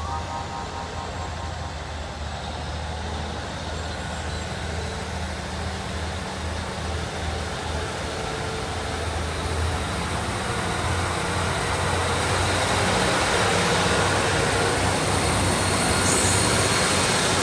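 Two coupled Class 153 diesel multiple units pulling away from the station, their diesel engines running under power with a steady low drone. The noise grows louder through the second half as the train moves off past the crossing.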